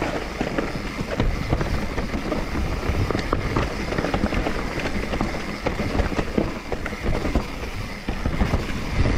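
Mountain bike descending a rough forest trail on dirt, roots and stones: a continuous rolling rumble of the tyres, broken by many quick knocks and rattles as the bike hits bumps.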